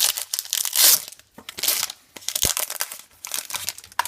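A trading-card pack wrapper being torn open and crinkled in the hands: a dense run of crackles, loudest about a second in.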